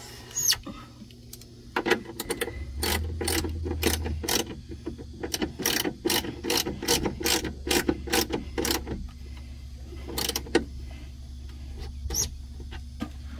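Ratcheting socket wrench with a 13 mm short socket clicking as it tightens a battery terminal bolt: a fast run of ratchet clicks from about two seconds in to about nine, then a few more near the end.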